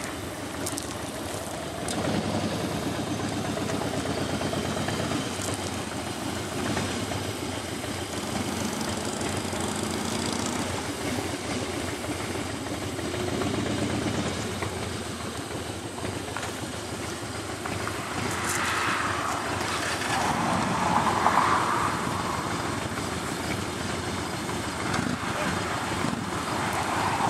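Motorcycle engines running at idle, a steady low rumble.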